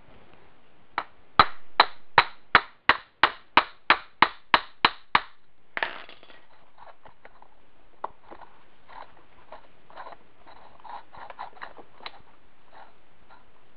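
Hammer tapping a steel pin into a Wheel Horse differential's gear carrier, about thirteen sharp metal-on-metal strikes at roughly three a second, growing lighter. Lighter clicks and rattles of the differential gears follow as the axle shafts are turned to check that they turn freely.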